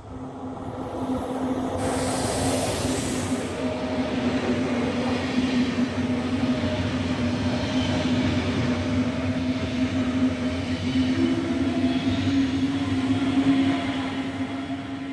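Red Deutsche Bahn regional electric multiple unit passing close through the station, with wheel and rail rumble under a steady electric hum. A high hiss comes in about a second in and lasts a few seconds.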